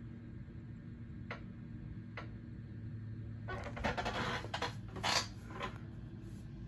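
Two light clicks, then about two seconds of clattering and rubbing handling noise as the phone filming is moved, over a low steady hum.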